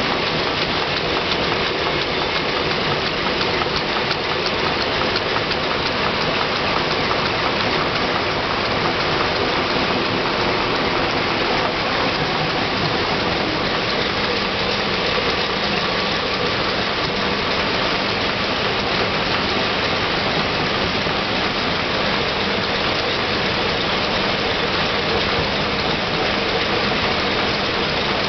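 Film packaging envelope pasting machine running steadily: a continuous dense mechanical hiss with a faint steady hum underneath.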